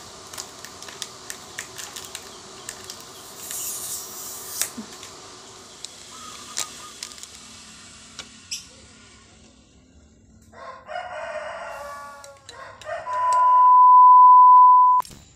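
A rooster crows twice, and then a steady, loud test-tone beep sounds for about two seconds. Before that there are scattered clicks over low background noise.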